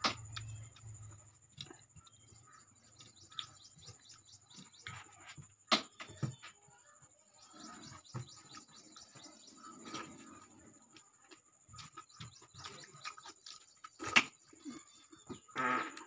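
Close-up eating sounds: fingers squishing and mixing dal and rice on a steel plate, with chewing and wet lip-smacking. Two sharper clicks, about six seconds and fourteen seconds in, are likely fingers or nails striking the steel plate.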